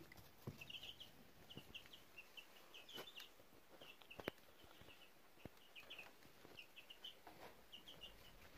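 White leghorn chicks peeping faintly in quick little groups of two or three high peeps, repeated every half second to a second, with a few light taps among them.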